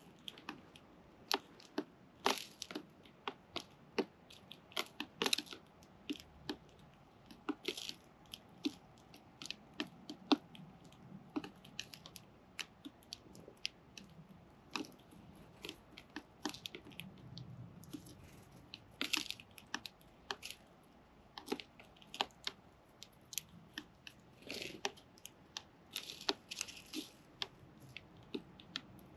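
Young sparrows pecking and cracking seed at a feeding spot: a steady scatter of sharp irregular clicks and taps, with a few short rustling flurries. No calls.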